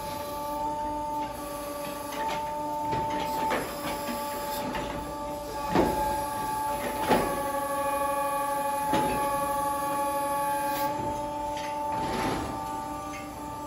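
Loader boom's hydraulics whining steadily while a bale-shaker grab shakes apart an alfalfa bale. Sharp metallic knocks from the grab come about five times, the loudest two near the middle.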